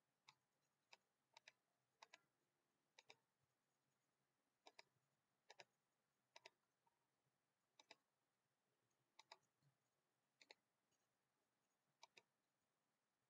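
Faint computer mouse button clicks, about a dozen at irregular intervals, some in quick pairs.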